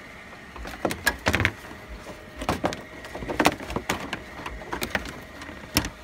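Hard plastic truck grille and headlight trim being handled and wiggled: a string of irregular clicks, taps and knocks, loudest just after a second in, around the middle, and once more near the end.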